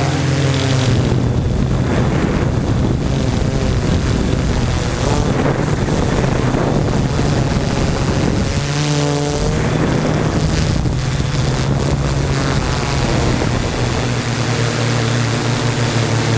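Yuneec Typhoon G drone's electric motors and propellers buzzing in flight, heard through the GoPro it carries, with wind rushing over the microphone. The motor pitch wavers and shifts around the middle as the drone turns.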